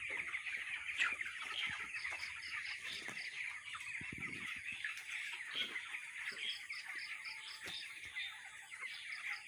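A flock of three-week-old broiler chickens peeping and clucking together, a steady chorus of many overlapping calls, with a few faint knocks among them.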